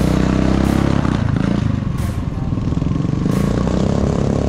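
Vehicle engine running steadily on the move, its pitch shifting a little about a second in.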